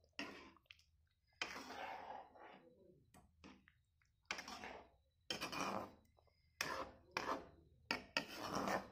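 Spatula stirring thick curry in a wok, scraping and knocking against the pan in a series of short, separate strokes.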